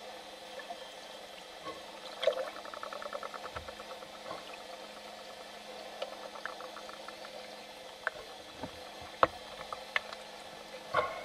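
Dolphins heard underwater: a rapid pulsed train of clicks, about fifteen a second, a couple of seconds in, then scattered single sharp clicks and pops over a faint steady hum and water noise.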